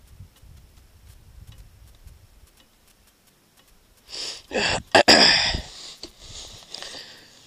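A loud, rushing sniff from the rider, close to the microphone and lasting about a second and a half, comes about four seconds in over a faint low wind rumble.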